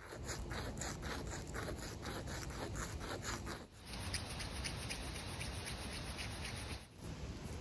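A slender handmade needle being ground to shape by hand: quick back-and-forth scraping strokes, about five a second, first on a concrete block, then with the tip rubbed against a small rough piece held in the fingers. The rubbing breaks off twice for a moment.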